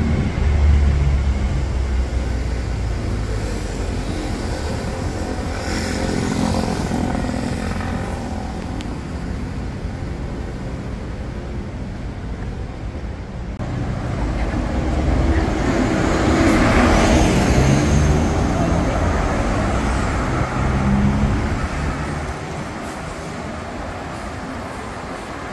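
Road traffic on a busy city street: city buses and cars running and passing, with a heavy low engine rumble at the start and a vehicle passing close, getting louder then fading, around the middle.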